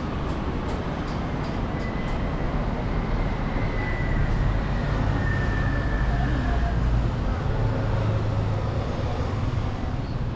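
City street traffic noise with a vehicle's low rumble swelling in the middle and a thin high whine from about two seconds in to about seven seconds in.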